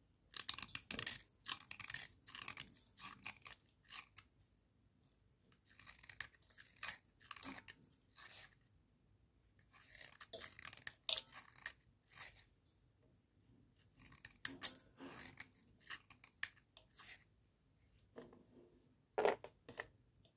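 A small blade cutting and scraping a wet cubical slate pencil: crisp crunching and crackling in short bursts of one to two seconds with pauses between them. Near the end comes a sharper, louder snap with a faint ring.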